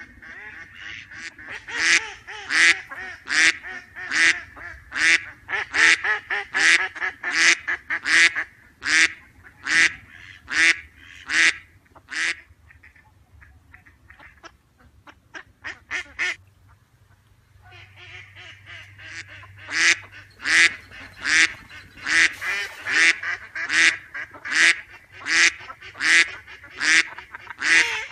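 Mallard ducks quacking: a steady series of loud quacks, about one and a half a second, over softer quacking chatter and a low steady hum. Around the middle the loud quacks thin out to a few faint ones for several seconds, then the series starts up again.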